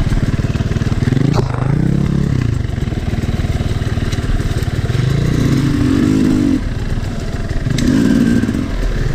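2022 Sherco 300 SE Factory two-stroke dirt bike engine being ridden, its pitch rising and falling several times as the throttle is opened and closed. There is a sharp knock about a second and a half in.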